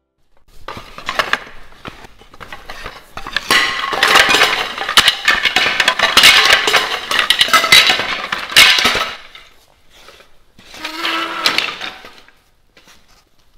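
Old wooden chair frame being broken apart and dropped onto a concrete floor: repeated cracking and clattering of wooden pieces for about eight seconds, then a shorter burst of noise about eleven seconds in.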